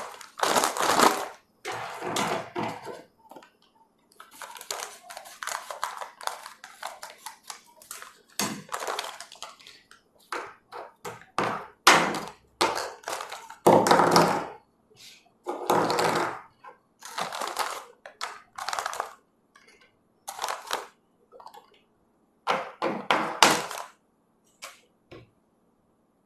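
Plastic bag rustling and small hard-plastic Play-Doh flower cutters and moulds clattering and knocking as they are taken out and set down one after another on a wooden table.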